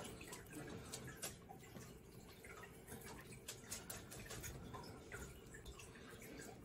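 Faint, scattered wet clicks and ticks of a boning knife slicing silver skin off a raw beef short rib while the membrane is pulled up from the meat.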